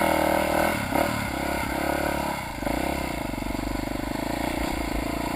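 Trail motorcycle engine running just after being restarted, its pitch rising and falling for the first couple of seconds, then settling into a steady idle from about halfway through.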